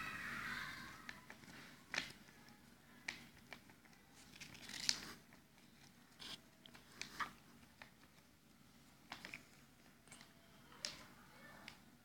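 A sheet of origami paper being handled and folded: scattered soft rustles and sharp crinkling clicks as it is bent and creased, the loudest about five seconds in. A short high-pitched sound tails off in the first second.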